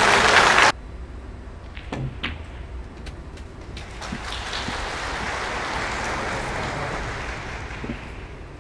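Loud, brief rush of noise that cuts off suddenly in the first second, as a red snooker ball drops into the corner pocket. Then a couple of sharp clicks, and from about four seconds in, audience applause that swells and fades over about four seconds.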